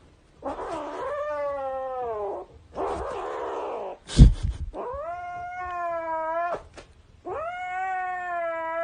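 A cat yowling in long, drawn-out calls, four of them, each held for one to two seconds. A loud thump comes about four seconds in.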